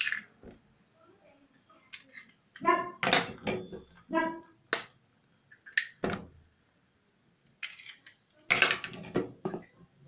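Eggs cracked against the rim of a plastic bowl and dropped in, with sharp cracking taps, three close together between about four and six seconds in. A few short pitched voice sounds come a little earlier.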